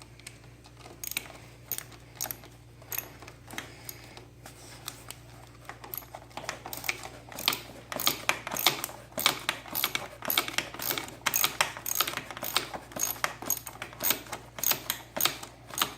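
Ratchet with a 10mm socket clicking in quick runs while a bolt is backed out of a motorcycle's clutch lever. The clicks are sparse at first and come thick and fast from about halfway in.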